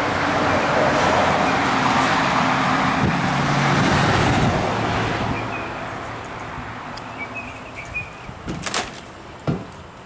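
A road vehicle driving past, its engine hum and tyre noise loud for the first few seconds and then fading away. Near the end come a few sharp knocks: footsteps climbing a travel trailer's folding metal entry steps.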